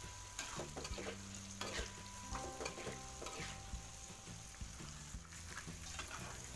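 Tofu cubes deep-frying in hot oil in a wok, sizzling steadily, while a metal spatula stirs them, scraping and clicking against the wok.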